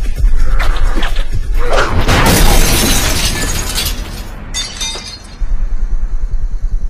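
Glass window smashing as a body crashes through it, with several sharp crashes. About four and a half seconds in there is a brief high tinkling of falling shards, over a film score with a low pulsing beat.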